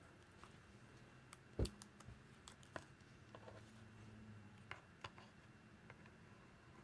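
Faint scattered clicks and taps of small hard objects being handled, with one louder knock about one and a half seconds in, over a low room hum.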